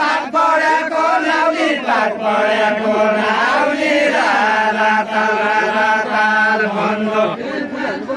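Deuda, the Far-Western Nepali folk song-duel, sung in a chanting style with long held, wavering notes.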